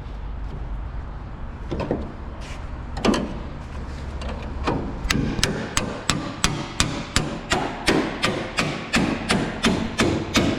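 Hammer blows on a pickup's sheet-metal bedside as it is being knocked loose. A few scattered knocks come first, then from about halfway through a steady run of strikes at about three a second.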